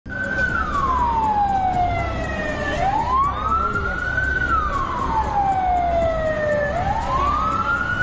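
Emergency vehicle siren wailing slowly up and down: each wail slides down from a high pitch over about two seconds and climbs back in about one and a half, twice over, above a low rumble of road traffic.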